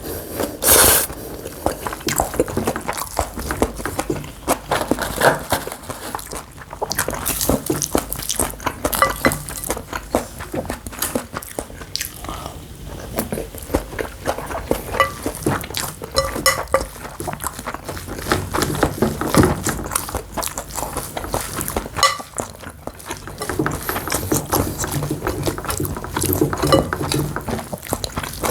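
Spoon clinking and scraping against a bowl of bibimbap in many short, irregular clicks, with close-up eating sounds.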